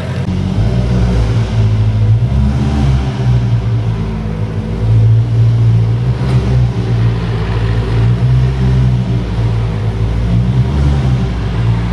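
Ferrari 488 Pista's twin-turbo V8 running at low revs through a Novitec exhaust: a steady low note whose pitch steps up and down slightly a few times.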